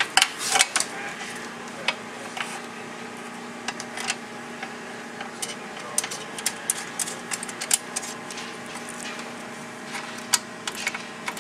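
Scattered light clicks and taps of bolts being fitted into a door mounting bracket and snugged with a socket ratchet, quickest in the middle. A steady low hum runs underneath.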